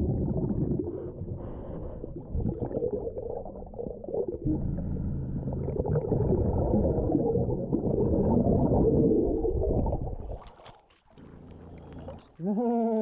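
Muffled underwater rumbling and gurgling from a diver's regulator breathing and bubbles while digging on a creek bed. It drops away about ten seconds in as he surfaces, and near the end a voice cries out above water.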